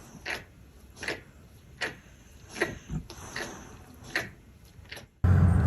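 A series of short, light clicks or taps, roughly one or two a second and uneven in spacing. About five seconds in they cut off, and a loud, steady low hum begins.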